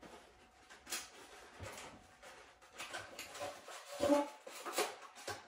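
Light kitchen knocks and handling clatter, with one sharp knock about a second in and a louder cluster of knocks around four to five seconds in.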